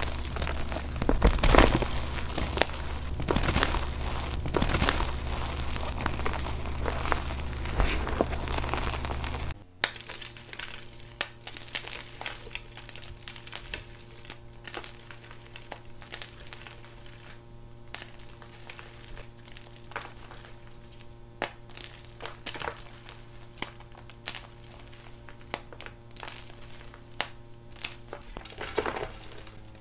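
Hands crushing soft blocks of gym chalk into powder: dense, loud crunching and crumbling for about the first ten seconds, then, after a sudden drop, quieter scattered crunches and crumbles of chalk breaking in the fingers over a faint steady hum.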